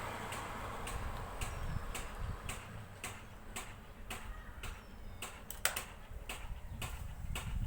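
Analog wristwatch ticking, about two ticks a second, with a low rumble of handling underneath.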